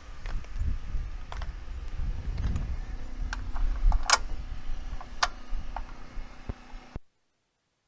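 Sharp knocks and clacks of wood framing as a stud wall section is stood up and fastened, with two louder cracks about four and five seconds in, over a low rumble and a steady low hum. The sound cuts off suddenly near the end.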